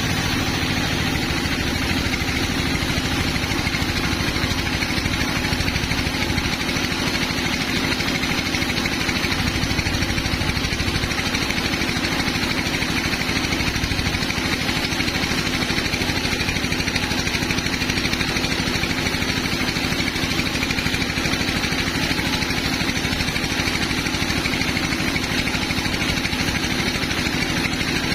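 Sawmill machinery running: a steady engine drone with an even, hissing noise over it.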